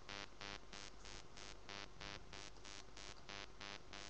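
Faint pulsing electronic buzz, about three short pulses a second, over a steady low hum.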